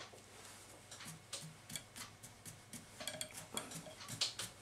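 Faint, irregular small clicks and taps from hands handling tools and materials at a fly-tying vise.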